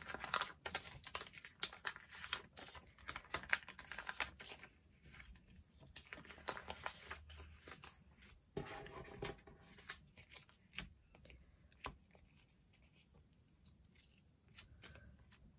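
Soft crinkling and rustling of plastic card sleeves and binder-page pockets as photocards are handled and slid in, with small clicks and taps. It is busiest in the first few seconds, then sparser.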